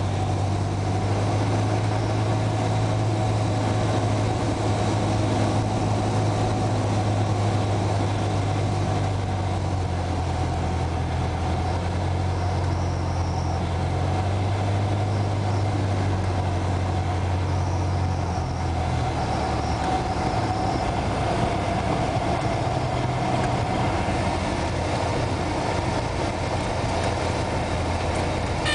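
Cessna 172's piston engine and propeller running with a steady drone; the engine note drops slightly about two-thirds of the way through, as power is eased back.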